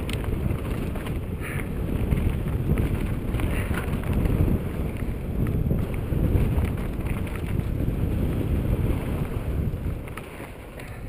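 Wind buffeting the microphone of a camera riding on a mountain bike going fast down a dirt and gravel singletrack, with the crunch of tyres on loose stones and short rattles of the bike over bumps. The rumble eases a little near the end.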